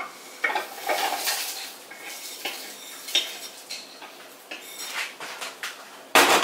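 Garlic cloves, green chillies and spices tipped from a small plate into a plastic food-processor bowl: scattered clicks and clatters of pieces dropping in and the plate knocking against the bowl, with one louder clatter near the end.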